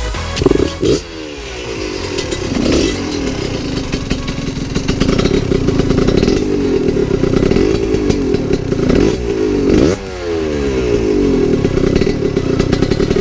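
Husqvarna 125 SMS two-stroke supermoto with an FMF exhaust, revved again and again: about half a dozen throttle blips, each jumping up in pitch and falling back toward idle between them.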